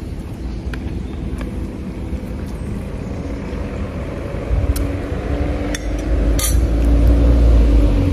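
A low rumble that swells in the second half, with a few light clinks of a spoon against picnic dishes.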